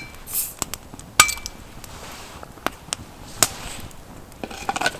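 Glass beer bottle being opened: a clink of the metal crown cap against the glass and a short hiss of gas, then a sharp ringing clink a little over a second in. A quick run of small clinks follows near the end.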